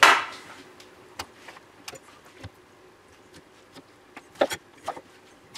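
Knife and cut pineapple pieces being handled on a wooden cutting board: a clatter right at the start, then scattered light taps and two sharper knocks about four and a half seconds in.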